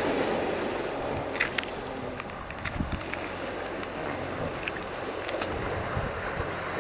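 Wind noise on the microphone over the wash of surf on a pebble shore. A few scattered clicks come from a cat chewing and tearing at a raw flounder carcass.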